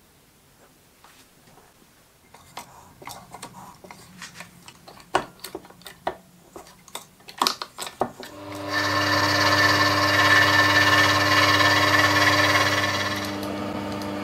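Clicks and taps of small metal parts and tools being handled. Then, about nine seconds in, a small bench metal lathe starts and runs with a steady motor whine and a loud hiss over it. The hiss drops away near the end while the motor keeps running.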